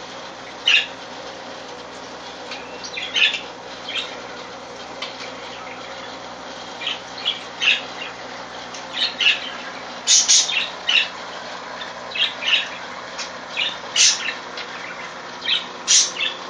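Pet parakeets chirping in short, scattered high calls, some in quick clusters, over a steady low hum.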